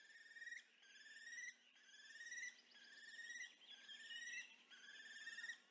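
Faint pulsed trills, six of them about once a second, each lasting about half a second and rising slightly in pitch: a small animal calling over and over.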